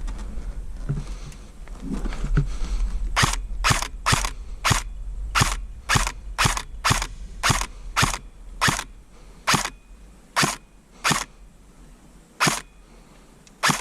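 ASG M15 airsoft electric rifle firing single shots, about sixteen of them starting about three seconds in, roughly two a second at first and then further apart toward the end.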